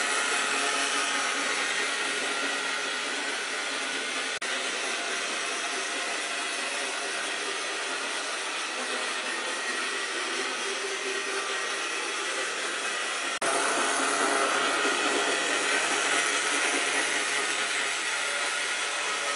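Rivarossi HO-scale model N&W Y6b 2-8-8-2 locomotive running on track: a steady whirring hiss of its electric motor and gearing, with the wheels rolling on the rails. It breaks off abruptly twice and is a little louder after the second break, about thirteen seconds in.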